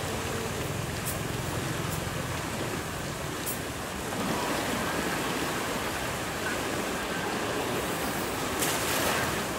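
Fast, turbulent water rushing through a concrete dam outflow channel, a steady noisy rush. A few brief crisp sounds lie over it, the longest near the end.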